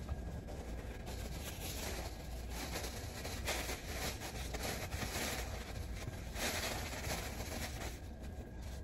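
Paper towel wiping and scrubbing across a vinyl floor, a series of repeated rubbing strokes with paper rustling, while debris is cleaned up around a toilet flange.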